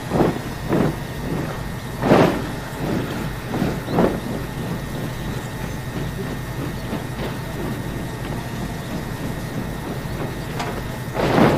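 Recruits performing a silent rifle drill: boots stamping and rifles slapped in unison, heard as sharp thumps, several in the first four seconds and a loud one near the end, over a steady low rumble.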